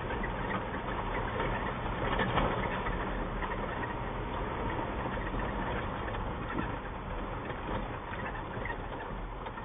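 Vehicle engine running low as the vehicle creeps along a dirt road, with a steady rumble of tyres on gravel.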